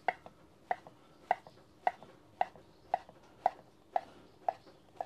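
Chef's knife chopping slices of smoked beef brisket into small cubes, the blade knocking on a wooden cutting board in an even rhythm of about two strokes a second.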